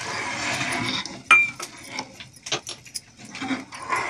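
Water pouring from a steel bowl into a pan of frying masala for about the first second. Then a sharp metal clink with a short ring, followed by a run of lighter clinks and scrapes as a steel ladle stirs the thinned curry in the kadai.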